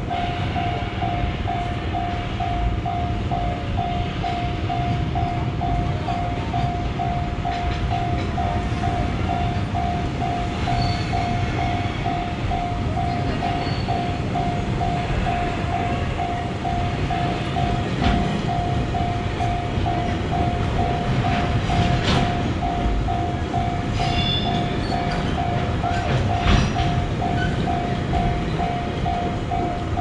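Japanese level-crossing warning bell ringing steadily, its 'kan-kan' ding repeating evenly, over the continuous rumble of a long freight train of container wagons passing. A few sharp clacks from the wagons stand out about two-thirds of the way through.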